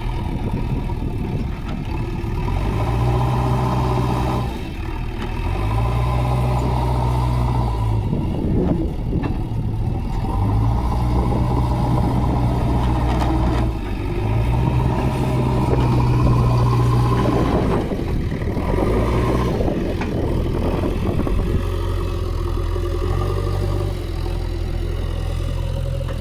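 JCB backhoe loader's diesel engine running under work, its speed rising and falling again and again, with clattering through the middle.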